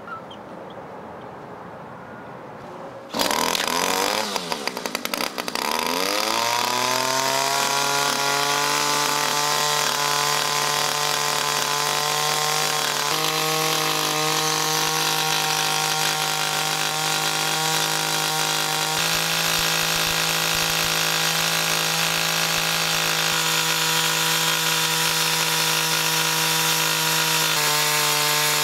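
Two-stroke string trimmer engine starting up about three seconds in. It runs fast and rough at first, its pitch falling over the next few seconds, then holds a steady high-speed run, with a few abrupt small steps in pitch. It is running on straight gasoline with no oil in the fuel, so the piston is unlubricated and rubbing against the cylinder.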